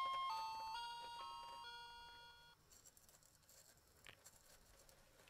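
A simple bell-like background melody of clean stepped notes ends about halfway through. Near silence follows, with one faint click at about four seconds, as a small toy plate is set down on a toy bench.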